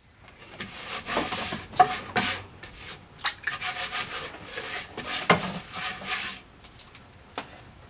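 Hands rubbing and scraping clay across the clay-caked surface of a potter's wheel head, in a series of short hissing strokes. The strokes stop about six and a half seconds in, and a single sharp click follows near the end.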